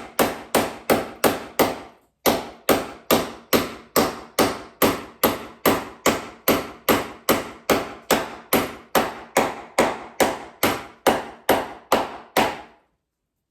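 A hammer driving a corrugated fastener into an aerated-concrete wall to pin a crack closed. It strikes in a fast, even run of about three blows a second, pauses briefly about two seconds in, resumes, and stops shortly before the end.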